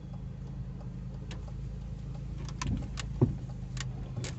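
Car running at low speed, heard from inside the cabin as a steady low hum. Several sharp clicks and rattles come in the second half, with one louder knock a little past three seconds in.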